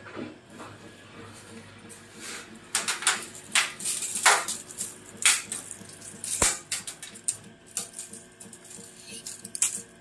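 Irregular sharp clicks and light metallic rattles from handling a tape measure while measuring a washing machine, with several louder knocks from about three seconds in.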